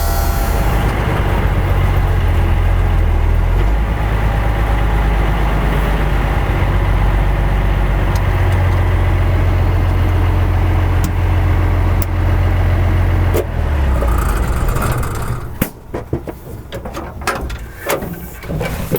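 M35A2 deuce-and-a-half's multifuel diesel engine running with a steady, loud low rumble. About fifteen seconds in it stops, and scattered clicks and knocks follow.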